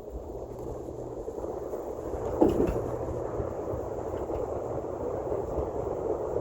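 Electric scooter riding along: a steady low rumble of wheels on pavement and wind on a muffled microphone, growing gradually louder.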